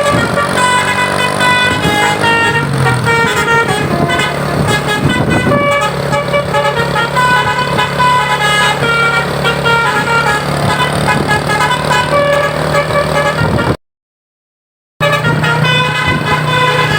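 Tour bus's multi-tone telolet (basuri) horn playing a quick tune of short notes that step up and down in pitch, over the bus's engine running. About fourteen seconds in the sound cuts to total silence for about a second, then the horn tune resumes.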